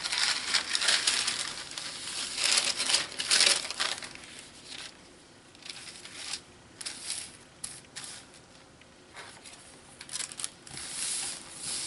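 Wax paper crinkling and rustling as it is laid over painted notebook pages and pressed flat by hand, busiest in the first few seconds. Paper rustles again near the end as a notebook page is folded over.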